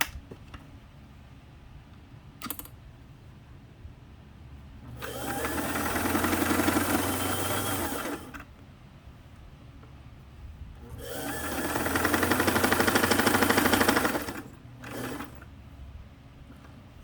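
Singer 327K sewing machine stitching a zigzag test seam in two runs of about three seconds each, each speeding up as it starts, with a few light clicks between them. This is the test sewing right after the thread tension was tightened a little.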